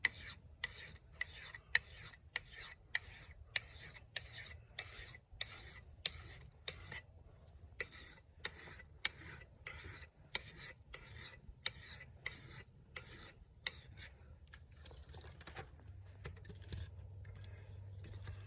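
Hand file rasping across a steel axe bit in short, firm push strokes, about two a second, sharpening the edge; the strokes grow sparser over the last few seconds.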